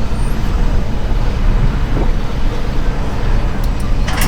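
Heavy diesel engine of a mobile crane running steadily under load as the crane lowers and swings, a constant low rumble. A short click sounds near the end.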